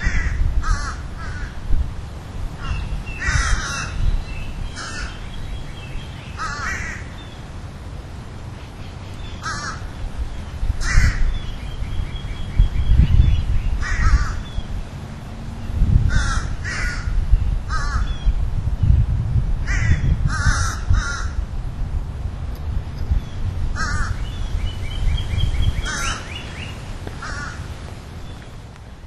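Harsh, short bird calls repeated at irregular intervals, sometimes in quick runs, over a steady low rumble.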